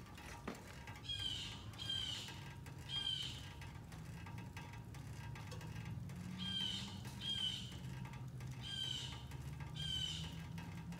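A bird gives seven short calls in three groups of two or three, over a steady low hum.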